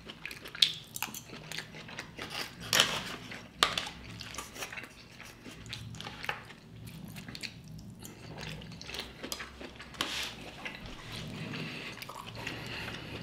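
Close-miked eating sounds: chewing, with a few sharp clicks of utensils against the dish now and then.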